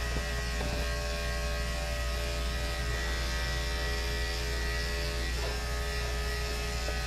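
Andis electric dog-grooming clipper fitted with a 10 blade, running with a steady, even hum at a constant pitch.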